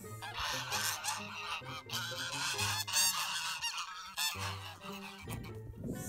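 A flock of domestic geese honking in a noisy, overlapping chorus, raising alarm at a dog. There is a short lull about four seconds in.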